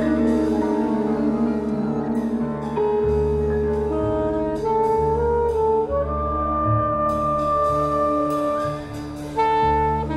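A large jazz ensemble playing live: held saxophone lines over sustained bass notes, with drum cymbal strikes clustered in the second half.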